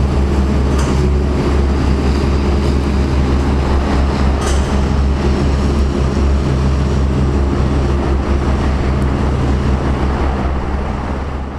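Steady low mechanical rumble with a constant hum, fading out near the end.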